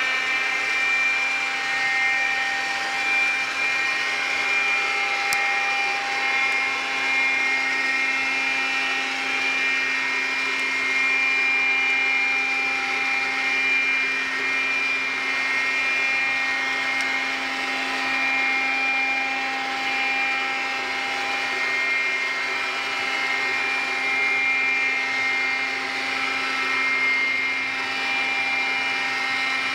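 iRobot Scooba floor-washing robot running as it washes a wet tiled floor: a steady motor whir and whine made of several held tones over a hiss, wavering slightly in level as it moves.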